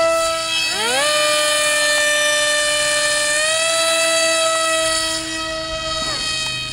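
Electric motors and propellers of two small foam RC planes whining at two different pitches. One is already running; the other spins up within the first second and rises a little further about halfway through; both wind down about six seconds in.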